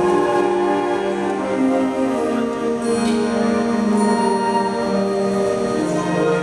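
Concert band of flutes and saxophones playing slow, sustained chords that change every second or so. A bright high ringing, like chimes or a cymbal, enters about three seconds in.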